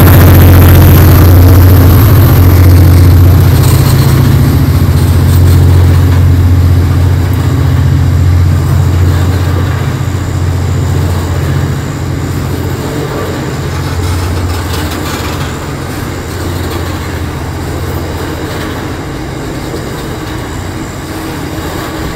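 Heavy freight train running past: the low drone of Aurizon 2300 class diesel locomotives fading steadily as they pull away, over the rumble of loaded coal wagons rolling on the rails.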